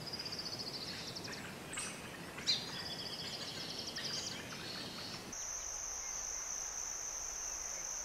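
Nature ambience sound effect of birds trilling, with a sharp note about two and a half seconds in. From about five seconds in a steady high insect buzz takes over, then cuts off suddenly.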